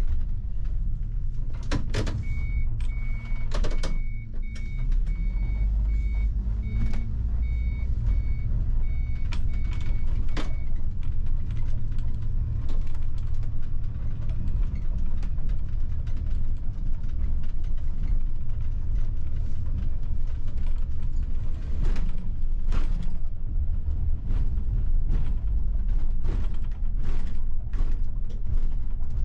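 Bus engine and road rumble heard from the driver's cab, with scattered rattles and knocks as it drives. From about two seconds in to about ten seconds in, a steady series of electronic beeps sounds over it.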